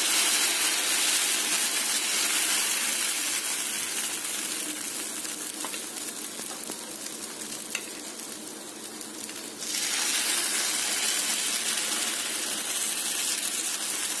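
Sprout chila batter sizzling in hot oil on a pan, a steady frying hiss. The sizzle fades over several seconds, then comes back louder suddenly about ten seconds in.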